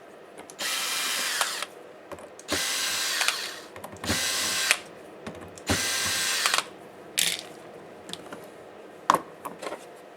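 Small electric screwdriver running in four bursts of about a second each and one short one, backing out small screws, followed by a couple of sharp clicks near the end.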